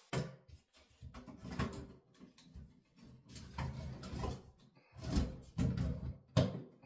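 Metal motor-mounting plate of a bathroom exhaust fan knocking and scraping against the ceiling housing as it is slid into its groove and plugged in: an irregular series of clanks and clicks, loudest in the last two seconds.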